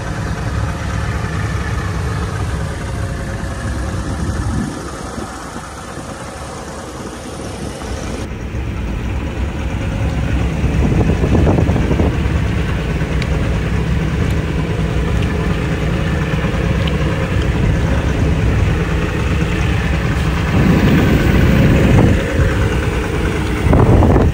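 Mercury 225 outboard motor running, idling at first and then louder as the boat gets under way, growing louder again in steps near the end.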